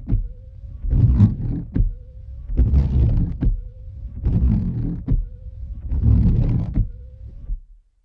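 Car windshield wipers sweeping back and forth across the glass, about one stroke every 1.7 seconds. Each stroke is a low rubbing swish that ends in a short knock, with a faint whine between strokes. The wiping stops near the end.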